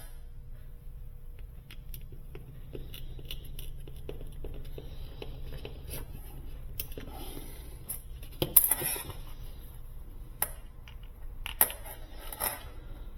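Clicks, rattles and knocks of small plastic and metal parts being handled, with a few louder knocks, as a replacement GFCI plug housing is assembled and its screws are fitted.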